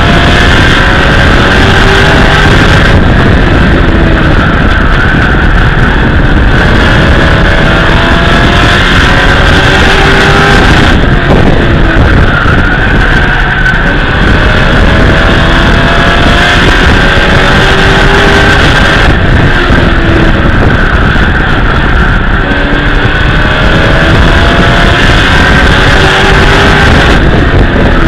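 Race truck's engine running hard through the laps, heard from inside the cab. Its pitch climbs as it accelerates out of each turn and drops back as the driver lifts for the next, about every eight seconds, over a loud, constant wash of engine and road noise.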